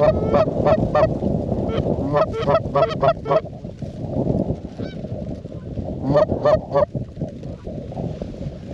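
Geese honking in quick runs of short calls, in three bursts, over steady wind noise on the microphone.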